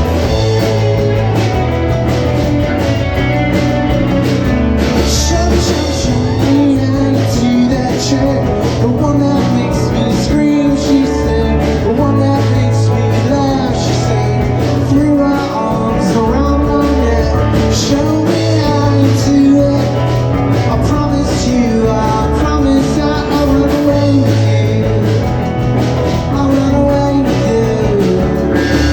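Live rock band playing a song, with guitar, a steady bass line, drums and singing.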